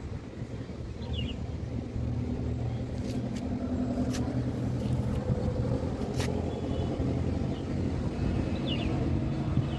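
Hair dryer running steadily with a low, even hum and rush of air, with a few sharp clicks in the middle.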